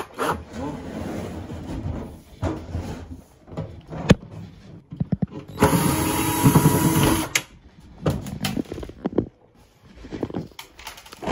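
Wood-grain laminate furniture being handled and moved: knocks and rubbing, with a loud scraping grind lasting about two seconds near the middle.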